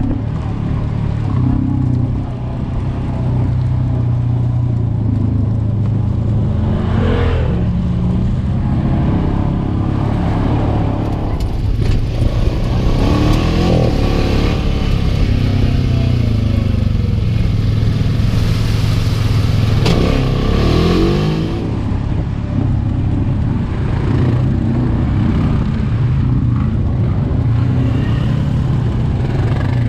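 Side-by-side UTV engine running under way on a rough dirt trail, heard from on board. The engine drones steadily and revs up and down with the throttle several times.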